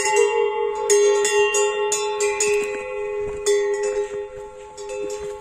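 Large hanging metal bell of the cowbell type, rung over and over with quick uneven strikes, each one ringing on with several clear tones. The strikes thin out and the ringing fades near the end.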